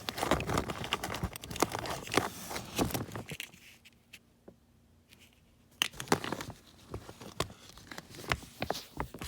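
Small plastic toys and accessories being handled and rummaged through: rustling, crinkling and light clicks, with a pause of about two seconds near the middle.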